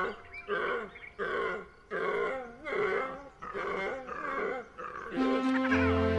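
An animal calling over and over in a series of short, pitched calls, each well under a second long and under a second apart. Music comes back in near the end.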